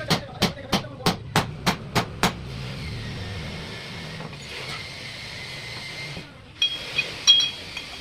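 Hammering in a repair workshop: a run of about eight sharp strikes, roughly three a second. Then steady background noise, with a few sharp metallic clinks near the end.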